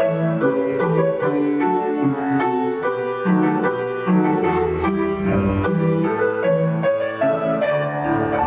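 Piano music playing a tune with a regular bass beat, accompaniment for barre exercises.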